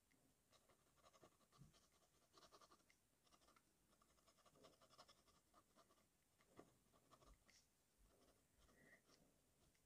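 TWSBI fountain pen nib scratching faintly across paper in short, irregular strokes as ink lines are drawn.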